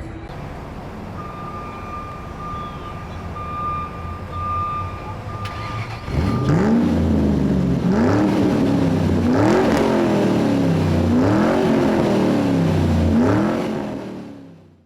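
An engine revving up again and again, its pitch rising and dropping back about every second and a half, after a few seconds of steady low hum with a thin high tone. It fades out near the end.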